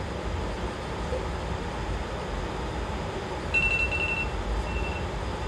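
Steady low mechanical hum and hiss of shop equipment running. A thin high-pitched whine comes in for about a second about three and a half seconds in, and briefly again near the end.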